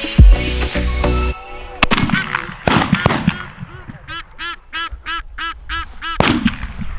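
Background music stops about a second in. Geese then honk in a rapid series of harsh calls, about four a second, and a single shotgun shot goes off near the end.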